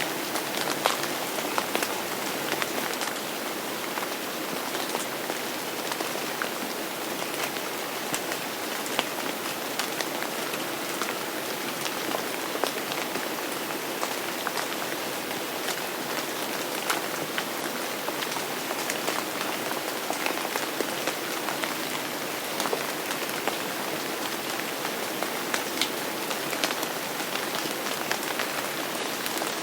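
Steady rain falling on a surface, an even hiss dense with the sharp ticks of individual drops.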